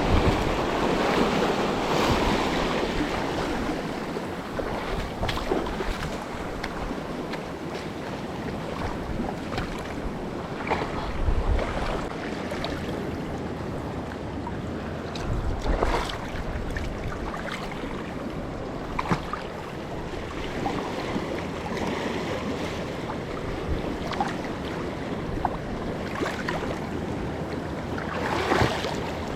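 Wind buffeting the microphone over the sound of sea water moving against a small boat, with scattered knocks and splashes.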